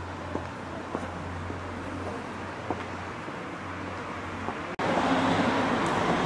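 Street traffic noise with a low steady hum and a few faint clicks. About five seconds in, it cuts abruptly to a louder wash of traffic.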